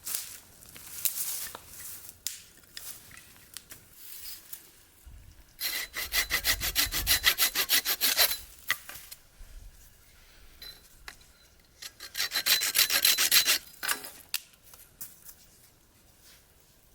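Small hand saw cutting wood in two bouts of quick, rhythmic strokes, the first about five seconds in and the second near twelve seconds, with scattered knocks and handling noise between them.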